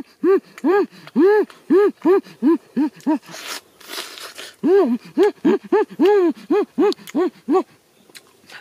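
A man makes short hummed "mm" sounds of relish, about three a second and each rising and falling in pitch, while eating roast chicken. About three seconds in they stop briefly for crunching bites into the meat, then start again and die away near the end.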